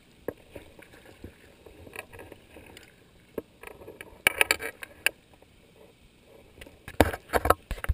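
Paddling an inflatable kayak: the paddle dipping and splashing, with scattered light knocks and clicks and two louder clusters of splashing and bumping, about four seconds in and again near the end.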